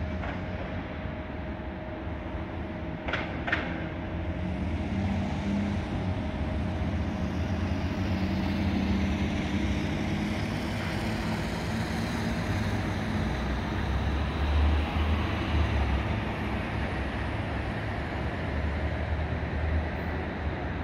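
Boeing 757 freighter's jet engines at takeoff power during the takeoff roll: a steady low rumble that swells over the middle of the stretch.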